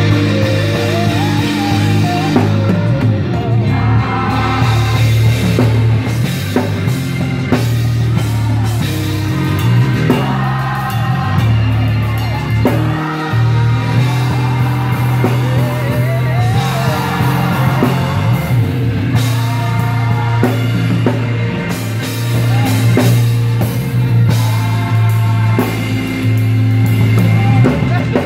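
A live gospel band plays with voices singing over it: drum kit and cymbals, keyboards and guitar over a heavy held bass. The bass drops out briefly about halfway through.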